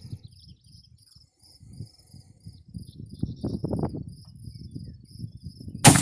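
Crickets chirping steadily over an irregular low rumble, then a single loud rifle shot from an 1871/84 Mauser rifle near the end.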